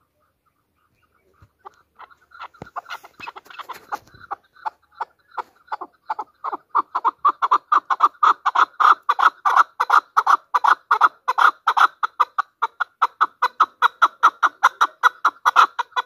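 Chukar partridge calling: a long, rapid series of repeated notes. It starts softly about two seconds in, grows loud, runs at about four or five notes a second, and stops abruptly near the end.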